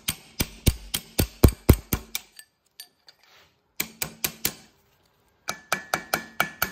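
Ball-peen hammer striking steel in quick runs of blows, about four a second, broken by two short pauses; the last run rings with a clear metallic tone. The blows are knocking the cut remains of the old wheel bearing off the rear wheel hub of a 1980 Porsche 911SC.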